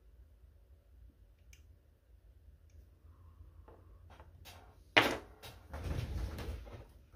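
Tools being handled on a workbench: a few light clicks, a sharp knock about five seconds in, then a second or so of rustling and scraping.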